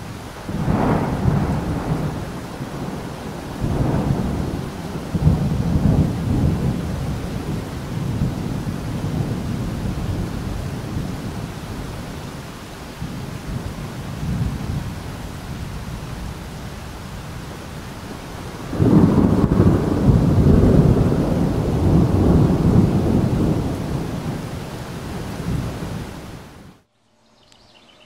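Several long rolls of thunder over a steady hiss of rain, the loudest roll about two-thirds of the way through; the sound cuts off suddenly near the end.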